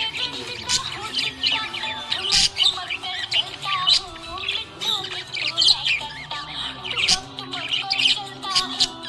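Small pet parrots chirping and chattering rapidly, with many short high chirps packed close together, over background music.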